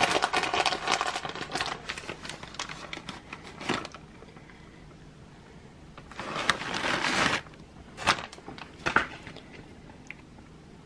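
Crinkling and rustling as shredded cheese is handled and scattered by hand over a noodle casserole in a glass baking dish. It is dense for the first few seconds, then thins to a short rustle about two-thirds of the way in and a few soft clicks.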